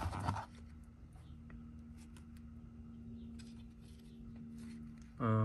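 Faint rustling and scattered small clicks of a mailer package being handled and cut open, with a louder crinkle at the very start.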